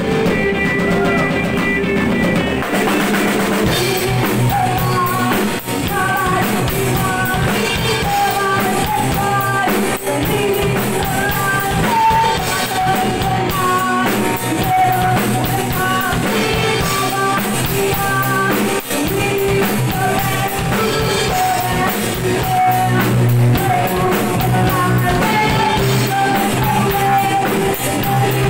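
Dark ethnic gothic metal music: a drum kit and guitars with a melody line running above them. The full band comes in about three seconds in.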